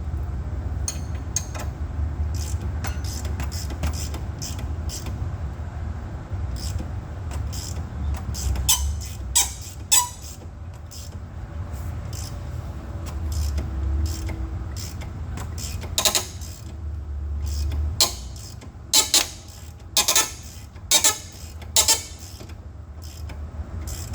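Hand tools working a control-arm bolt on metal: irregular clicks and knocks as the bolt is snugged down, with a cluster of louder sharp knocks near the end. A steady low hum runs underneath.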